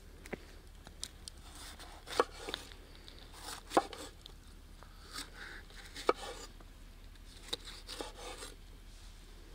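Cooking utensils knocking and scraping during food preparation: a few sharp knocks a second or two apart, with short scrapes and rubs between them.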